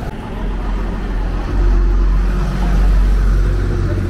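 A motor vehicle's engine rumble passing close by on a city street, swelling about a second and a half in and easing off near the end.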